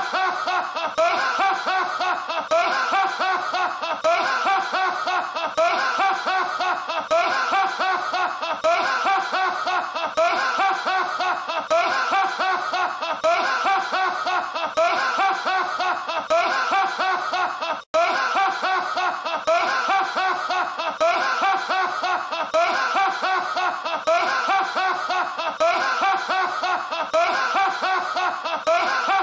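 A man's loud, hearty laugh, looped over and over in a steady run of rhythmic ha-ha pulses. There is a split-second drop-out about 18 seconds in.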